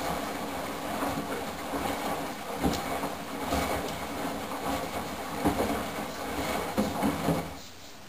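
Candy GO4 1274 LH GrandO Plus front-loading washing machine tumbling wet laundry in its final rinse: the drum turns while water sloshes and the clothes drop against the drum with irregular thuds. Near the end the drum stops and the sound falls to a quieter steady background.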